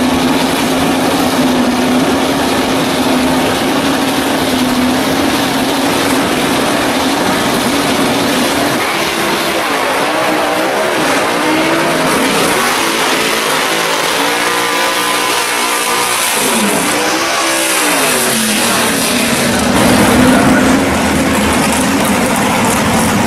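First-generation Camaro drag car's engine idling with a steady drone, then revved up and down several times through the middle before settling back to a steady idle.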